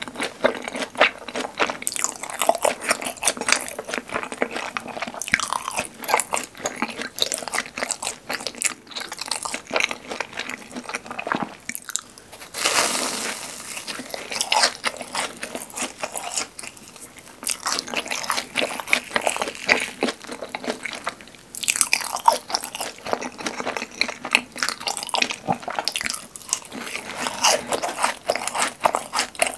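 Close-miked crunching and chewing of crispy-crusted fried cheese balls: repeated bites cracking the crust, then wet, crackly chewing, with a louder burst of crunching a little before the middle.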